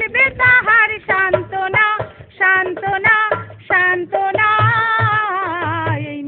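Singing with a drum beat: one melody line with held, wavering notes over a steady low drum pulse.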